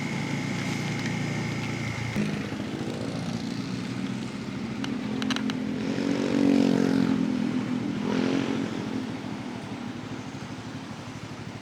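Bajaj Pulsar N250's single-cylinder engine running under way. Its note changes about two seconds in, rises and falls around six to eight seconds in, then eases off and gets quieter near the end.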